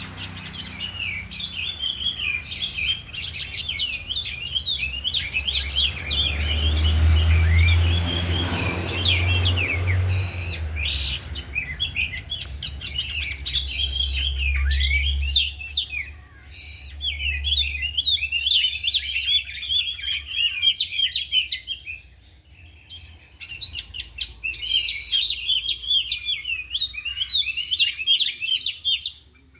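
Oriental magpie-robins singing a rapid, unbroken stream of varied chirps, whistles and mimicked phrases. A low rumble sits under the song in the middle.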